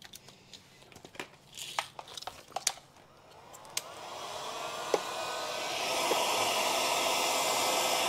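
A few light clicks and knocks of tools being handled, then an electric heat gun switched on about three seconds in: its fan spins up with a rising whine and settles into a steady blowing rush. It is heating the trailer's steel to lessen the risk of it fracturing when it is tapped straight.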